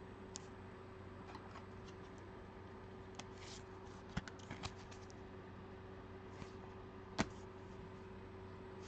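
Faint handling of trading cards on a table: a few scattered light clicks and short rustles, the sharpest click about seven seconds in, over a steady low electrical hum.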